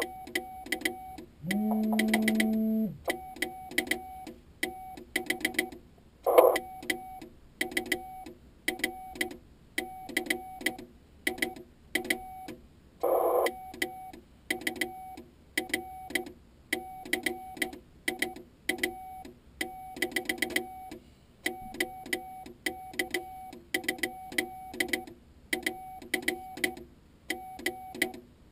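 Morse code on an Icom IC-701 ham transceiver: a steady high CW tone keyed on and off in dots and dashes, with sharp clicks under each element, likely from the homemade hand key. A brief lower buzzing tone sounds about a second and a half in.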